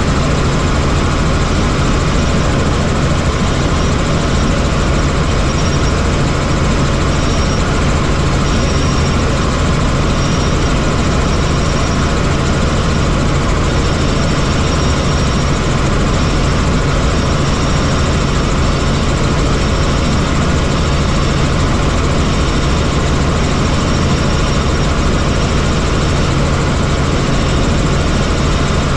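Helicopter in flight: engine and rotor give a loud, steady drone with a strong low hum.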